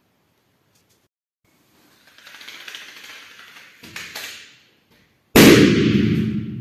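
A box of matches flaring up with a hissing fizz from about two seconds in, then about five seconds in a loud bang as the balloon bursts over the flame, fading over about a second.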